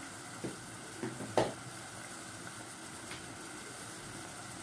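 Chicken sizzling steadily in an aluminium pot on a gas burner, with a few short, sharp knocks, the loudest about a second and a half in.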